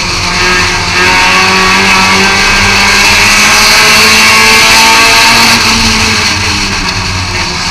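Thunder-class race car engine running hard at racing speed, heard from inside the car. It gets louder about a second in and backs off a little near the end.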